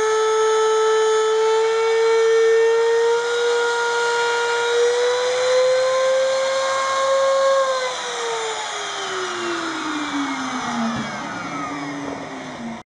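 Trim router held in a fixed jig, running with a steady high whine while a guitar body is fed past its bit to cut along the body's edge. Near eight seconds in it is switched off and the whine falls steadily in pitch as the motor spins down.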